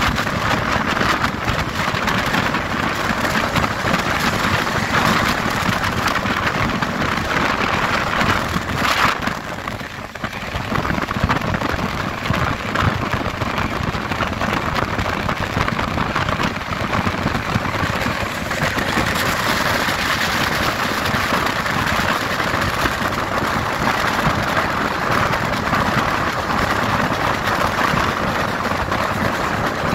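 Steady rush of a passenger train running at high speed, heard from an open coach door: wheels running on the rails with wind buffeting the microphone. The noise eases briefly about ten seconds in.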